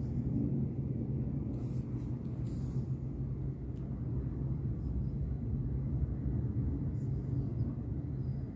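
A steady low hum and rumble, with a few faint clicks.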